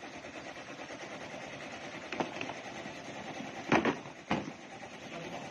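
Plastic knocks and clatter as thread cones and plastic storage bins are handled: a light knock about two seconds in, then two sharper ones close together near the middle, over a steady background hum.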